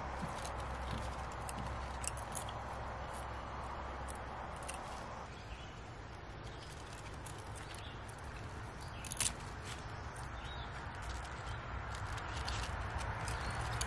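Outdoor ambience: a steady hiss over a low rumble, with scattered soft clicks and rustles and one sharper click about nine seconds in.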